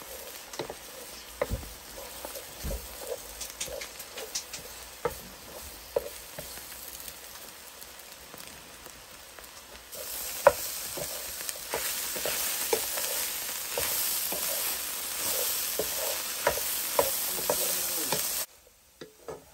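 Eggs sizzling as they scramble in butter in a skillet beside Spam and cauliflower fried rice, with a wooden spatula scraping and tapping the pan. The sizzle gets louder about halfway through and stops abruptly near the end.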